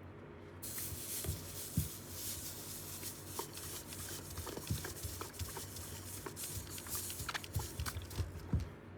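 Hot clothes iron pressed onto a wet towel over a sneaker midsole, the water steaming with a steady hiss that starts about half a second in and stops just before the end, with a few light knocks. The steam heat is what lifts the creases out of the midsole.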